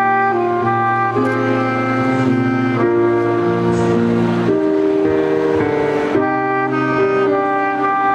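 Saxophone playing a melody of held notes over an accompaniment with chords and a low bass line.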